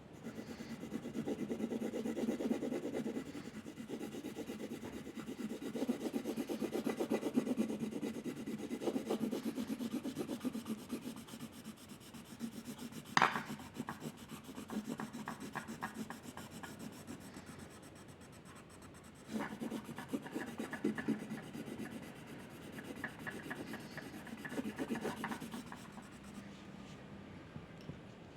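A drawing tool scratching on paper in quick back-and-forth shading strokes, in several spells with short pauses between. A single sharp click comes about 13 seconds in.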